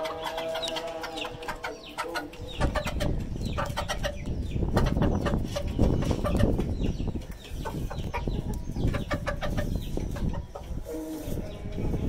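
Chickens clucking, with a held call in the first couple of seconds. From about two seconds in comes a run of quick sharp taps as they peck at grain.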